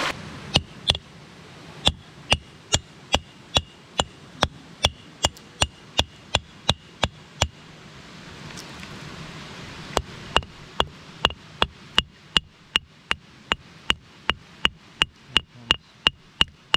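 Steel rock hammer striking a stone in quick, even taps, about two or three a second, each with a short metallic ring, chipping the rock open to expose a fossil clam. The taps stop for a couple of seconds about halfway through, then resume.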